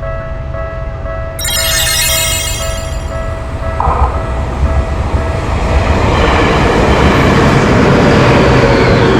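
Japanese railroad crossing warning bell ringing steadily while a train approaches and passes, its rumble building from about four seconds in to the loudest part near the end. A brief bright, high-pitched sound comes about a second and a half in.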